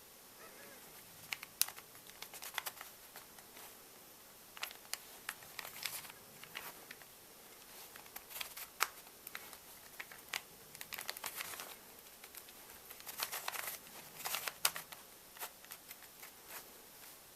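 Close-miked handling of small objects: irregular sharp clicks and short crackling flurries, coming in clusters with brief quiet gaps.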